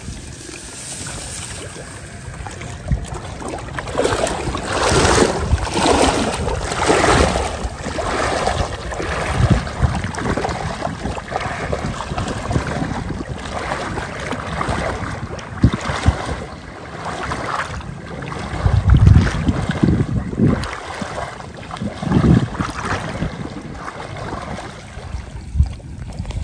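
Irregular swishing and splashing of water, with wind buffeting the microphone.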